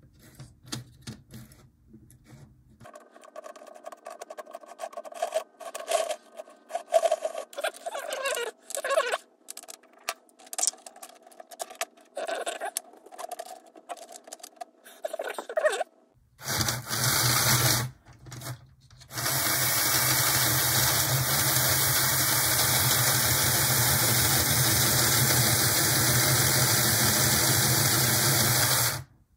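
Small clicks and scrapes of handling parts on the bench, then an HO-scale model locomotive's electric motor running at speed for about ten seconds with a steady buzzing hiss, after a brief first burst, and stopping abruptly. Its commutator has just been cleaned of heavy grime, but it still runs less than smoothly.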